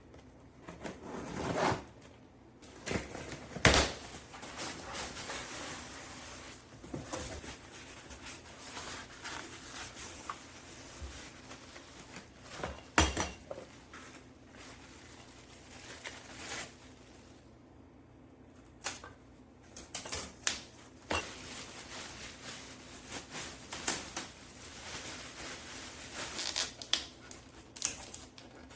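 A run of clicks, knocks and light clatter, some sharp and some soft, from hands handling the espresso machine and its cup and parts.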